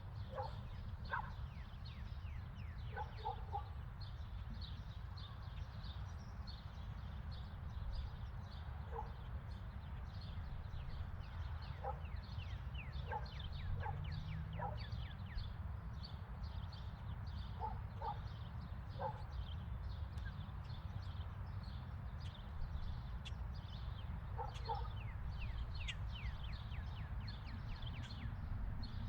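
Suburban neighbourhood ambience: many small birds chirping throughout, and a dog barking in short groups of one to three barks every few seconds. Under them runs a steady low rumble.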